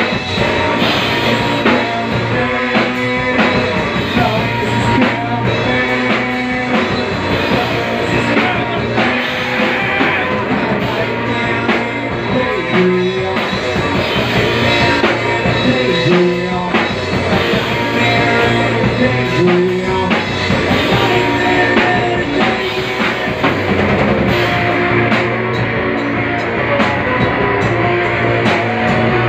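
Live rock band playing loud and steady: electric guitar, bass guitar and a drum kit with cymbals.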